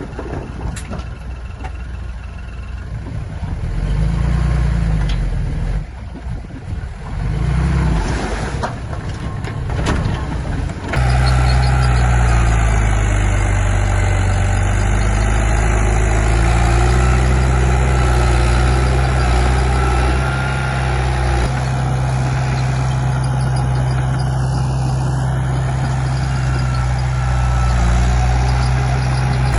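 Heavy diesel earth-moving machinery running. For about the first eleven seconds it rises and falls with scattered knocks. It then switches abruptly to a loud, steady engine sound.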